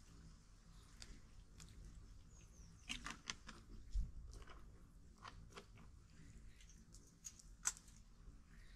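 Small wood campfire crackling faintly, with irregular sharp snaps and clicks as twigs are fed into it.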